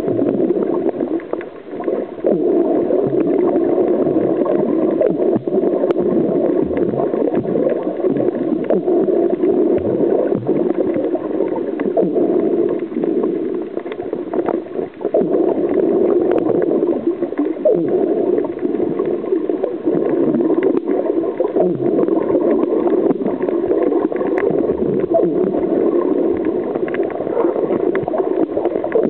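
Muffled underwater water noise picked up by a camera held below the surface: a steady, dull gurgling rumble with small flickers and brief dips.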